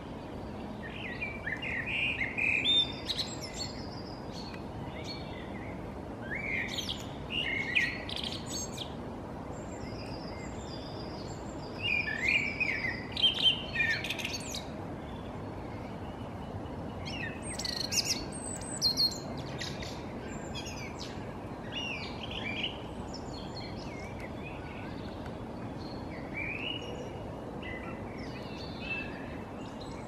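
Songbirds singing in short, varied phrases of chirps and trills every few seconds, over a steady background noise.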